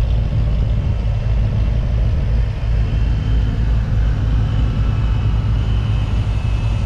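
A car engine running steadily, with a deep, even low rumble.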